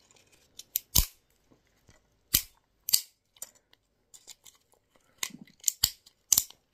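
Plastic casing of a small mechanical relay cracking and snapping as it is nipped and broken off with side cutters. There are several sharp snaps at irregular intervals, the loudest about a second in.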